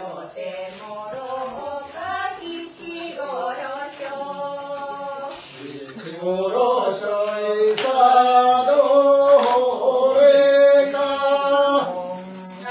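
Several voices singing a folk song together for the dancing, in long held notes; the singing grows louder about halfway through.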